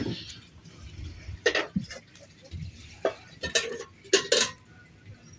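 A few short scraping, rustling handling noises, the loudest two near the end.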